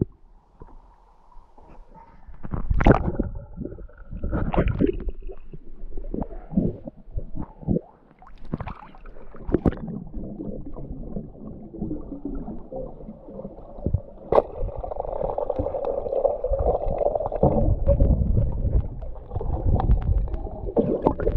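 Water sloshing and gurgling around a camera that dips in and out of shallow water, with irregular splashes and knocks.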